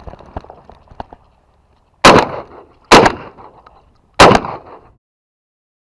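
Three shotgun shots, the second less than a second after the first and the third about a second and a half later, each loud and trailing off in a short echo. Before them comes a second or so of soft crunching and rustling.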